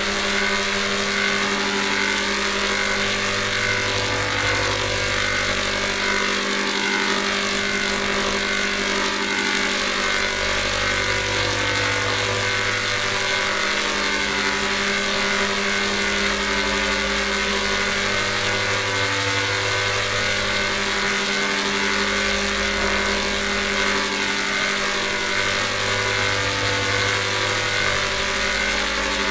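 A dense, distorted electronic drone: many steady tones stacked into one buzzing chord, with a low bass tone that fades in and out about every seven or eight seconds.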